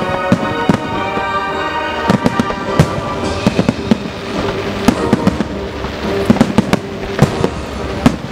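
Aerial fireworks shells bursting in a rapid, irregular series of bangs that grow denser after about two seconds, over music playing in the background.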